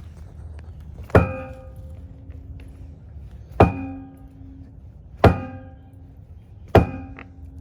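Heavy hammer blows driving a dock piling down to level the dock, four strikes about one and a half to two and a half seconds apart, each with a short metallic ring.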